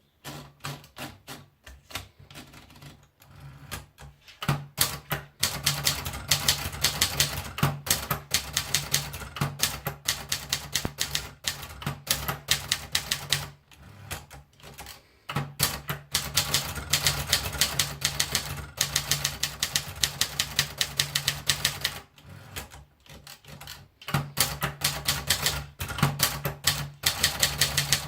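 Adler Contessa Deluxe manual typewriter being typed on: rapid runs of key strikes, several a second, in three long spells separated by brief pauses with slower, lighter strikes.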